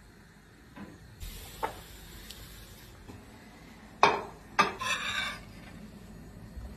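A metal spoon clinking against a plate as it scoops into the fried liver: two sharp clinks about half a second apart, the second followed by a short rattle.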